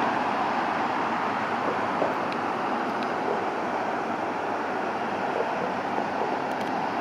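Embraer 175 jet's twin General Electric CF34-8E turbofans heard during the climb-out after takeoff, as a steady rushing noise that slowly eases off.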